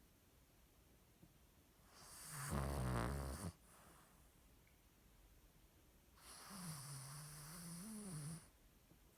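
Cavalier King Charles Spaniel snoring in its sleep: two snoring breaths. The first, about two seconds in, is loud and rattling and cuts off abruptly. The second, near the end, is softer, with a wavering hum.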